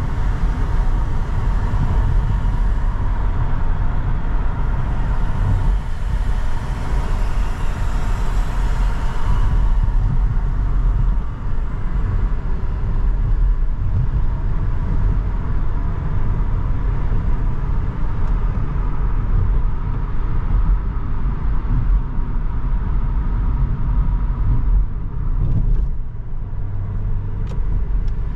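Car driving along a highway: a steady low rumble of engine and tyres, with a hiss of road and wind noise that eases about ten seconds in.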